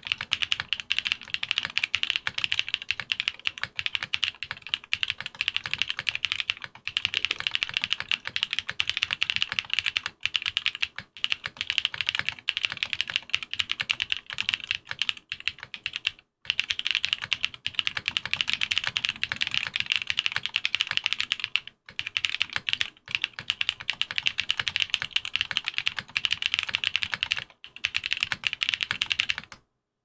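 Typing on a Geonworks Frog TKL mechanical keyboard with stock Mamba long-pole switches on an FR4 half plate and GMK keycaps: a dense run of loud, clacky, higher-pitched keystrokes, broken by short pauses every few seconds and stopping just before the end.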